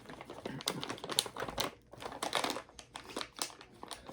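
Plastic snack packaging crinkling and rustling as it is handled, an irregular run of short crackles.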